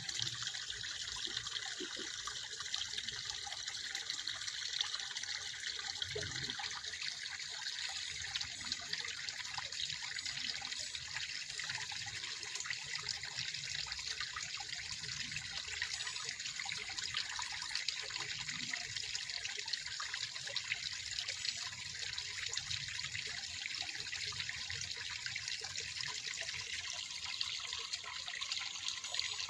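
Water trickling and lapping, a steady fine splashing with many small ticks and a few soft low thuds.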